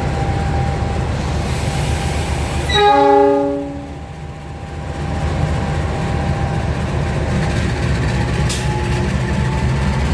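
Diesel-electric locomotive running with a steady low rumble, sounding its horn once for about a second, about three seconds in.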